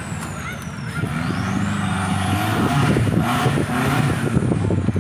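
Off-road 4x4's engine revving hard as it drives through a mud course, its pitch rising in bursts and getting louder in the second half, with mud and suspension clatter.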